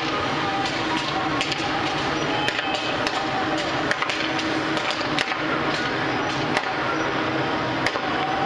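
Street traffic noise dominated by many motorcycles, with a steady engine hum, faint voices and frequent short sharp clicks throughout.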